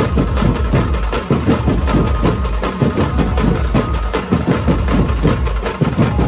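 A dhumal drum band's large barrel drums, beaten with sticks by many drummers at once in a fast, dense rhythm, with deep booming strokes under them.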